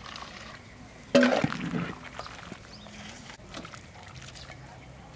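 Hot broth sloshing and pouring as a metal cup ladle scoops it in a large pot of soup. About a second in, a brief loud voice-like call cuts in.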